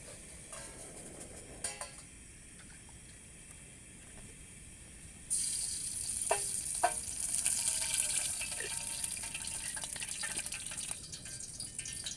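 A cooking pan over the fire starts sizzling suddenly about five seconds in, with a few clinks of a utensil against the pan.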